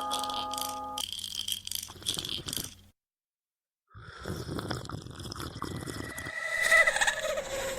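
Horror sound effects: a ringing tone that cuts off about a second in, over repeated rasping pulses a few times a second. After a second of silence, a low rumbling noise builds into a wavering, animal-like cry near the end.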